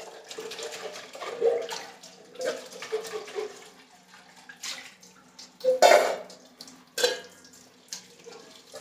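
Tap water running into a sink while stainless-steel pots and pans are washed by hand, with scrubbing and several clanks of metal utensils; the loudest clanks come about six and seven seconds in.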